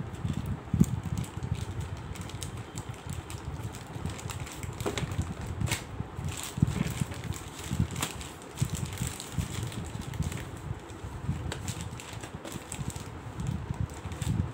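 Plastic mailer bag crinkling and rustling as it is handled and cut open with scissors, with irregular clicks and snips throughout.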